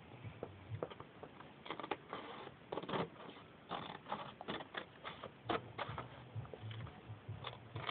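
Scissors cutting paper: a string of faint, irregular snips, roughly two a second, with the paper rustling as it is turned.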